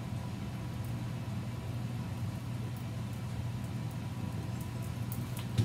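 A steady low machine hum, with one short knock near the end.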